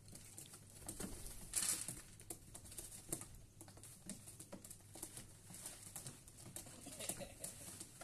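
Pigeons in a wooden nest box, with scattered scratching and tapping on the wood as the birds are handled and shuffle about. There is a louder rustle about a second and a half in.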